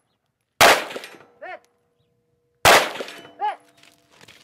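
Two shots from an FK BRNO PSD pistol in 7.5 FK, about two seconds apart. Each is followed about a second later by the ringing clang of a steel target being hit, which hums on briefly.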